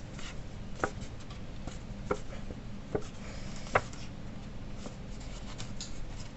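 Scored cardstock being handled and creased by hand: faint paper rustling with four sharp ticks, the last the loudest, as the folds are pinched and bent.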